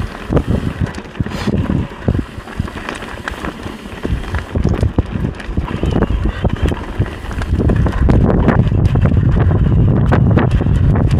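Wind buffeting the microphone while a mountain bike rattles and clatters over rough trail, with many short knocks. The wind rumble gets louder about eight seconds in.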